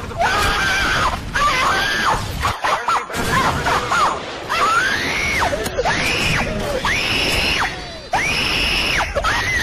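A person screaming over and over in high, shrill shrieks, each rising then falling, about one a second, over a noisy commotion.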